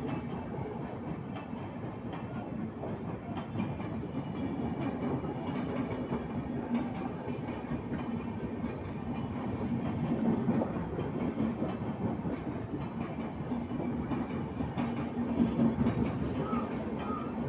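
Express train coaches rolling past close by at speed: steady wheel-on-rail noise with a low hum under it, swelling about ten seconds in and again about fifteen seconds in.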